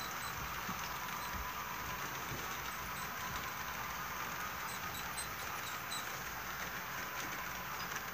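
HO scale model freight train rolling along the track: a steady running hiss with faint, scattered light clicks of the cars' wheels.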